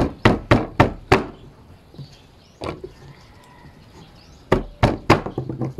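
Quick runs of sharp knocks: about five in the first second, a single one midway, then four more in quick succession near the end.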